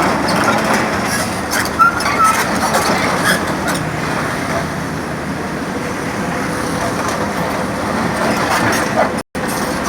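Sumitomo excavator's hydraulic breaker working concrete: continuous clattering over the machine's steady engine hum, with a couple of brief metallic squeals.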